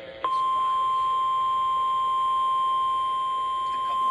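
NOAA Weather Radio warning alarm tone: a single steady tone near 1 kHz that starts about a quarter second in and holds without change. It signals that an emergency warning broadcast follows.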